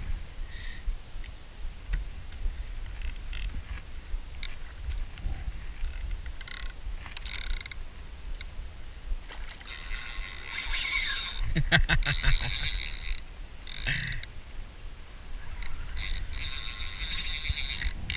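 Fishing reel working a hooked fish: mechanical ratcheting of the reel, with long buzzing bursts of the drag as the fish pulls line, about ten seconds in and again near the end.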